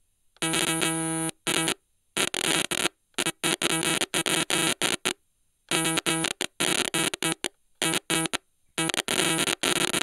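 Stylophone's buzzy electronic tone glitching: held notes chopped into irregular stuttering bursts that start and cut off abruptly, with short silences between them.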